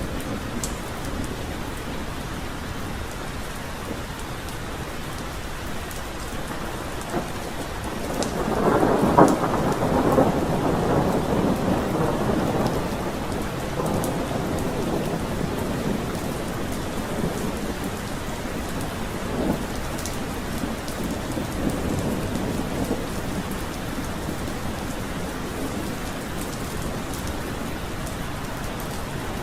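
Steady rain falling, with a long roll of thunder that swells about eight seconds in and rumbles away over several seconds; fainter rumbles follow later.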